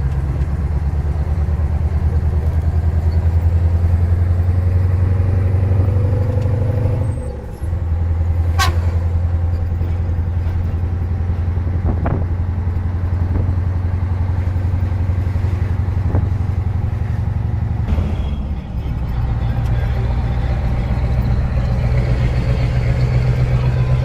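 Scania 143H 450's V8 diesel running through an open exhaust pipe, a deep steady note. The note climbs a little, then breaks off briefly about seven seconds in and again about eighteen seconds in. A short high falling chirp sounds about nine seconds in.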